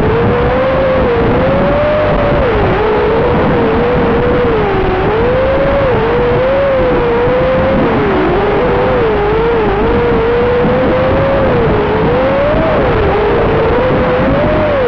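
FPV quadcopter's electric motors and propellers whining, the pitch rising and falling constantly with throttle, over a steady loud rushing hiss.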